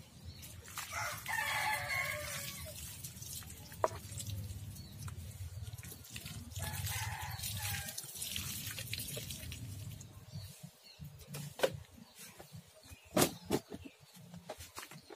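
Water poured from a plastic jug over peeled mushrooms in a perforated aluminium colander, running through and splashing onto concrete, with scattered drips and clinks near the end. A rooster crows about a second in, and again more faintly around seven seconds.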